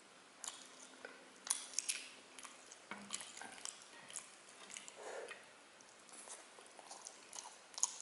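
Close-up eating sounds: chewing spicy sauced chicken feet with rice, eaten by hand, with irregular sharp wet clicks of the mouth and of fingers in the saucy food.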